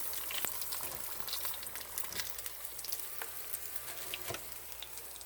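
Chicken wings frying in hot oil, a steady sizzle with many small irregular crackles.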